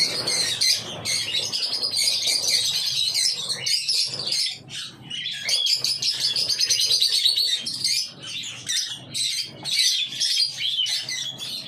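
A large flock of lovebirds, lutino personata among them, chattering and chirping together in an aviary. It makes a dense, continuous stream of rapid high-pitched chirps.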